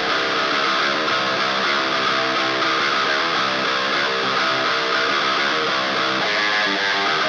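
Heavy metal background music: an electric guitar playing a fast riff on its own, without drums or bass.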